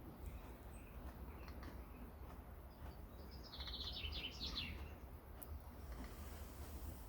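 A bird's short, fast trill of repeated high notes about halfway through, over a steady low background rumble.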